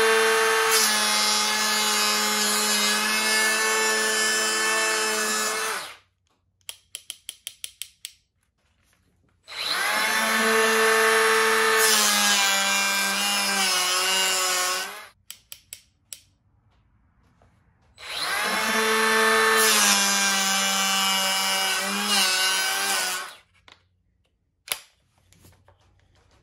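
A 12-volt cordless hand planer running and shaving a 2x6 board in three passes of about five to six seconds each, its motor whine dipping slightly in pitch as the blades cut. A quick series of clicks comes between the first two passes.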